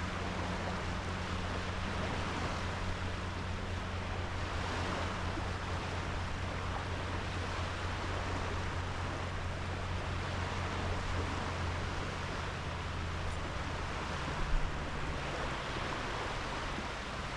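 Sea waves washing onto a sandy beach, the surf swelling and easing every few seconds, over a steady low hum. A brief thump about fourteen seconds in.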